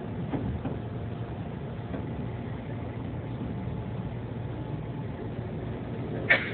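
Steady low hum inside a Kintetsu express train car, with one short sharp click near the end.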